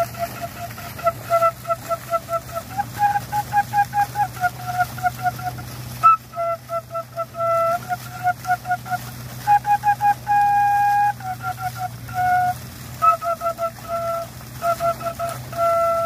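A flute-like melody of quick, short repeated notes on a few pitches, with an occasional longer held note.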